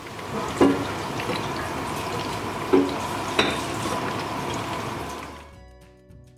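Battered chicken lollipops deep-frying in a wok of medium-hot oil: a steady sizzle and bubble with a few sharp crackles. The sizzle fades out about five and a half seconds in, giving way to soft background music.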